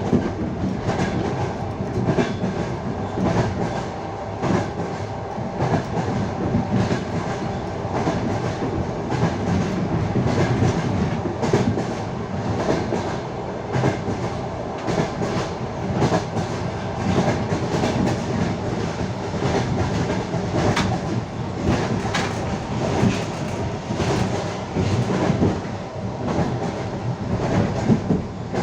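Wheels of a passenger train clattering over rail joints under a steady running rumble, heard from aboard the moving train.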